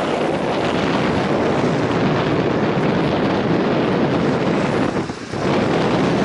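Strong wind buffeting the microphone: a loud, steady rush of noise with a brief lull about five seconds in.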